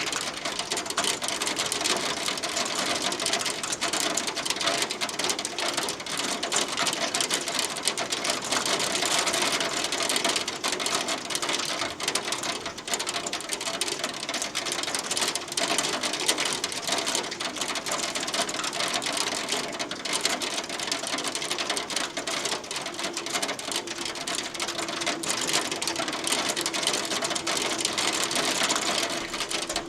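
Hailstones pelting a hard surface in a dense, steady clatter of rapid ticks.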